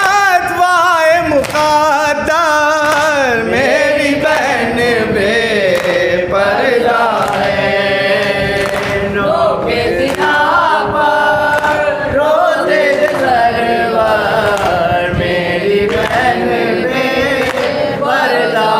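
A man chanting a noha, a Shia mourning lament, in a slow melody that slides up and down without pause.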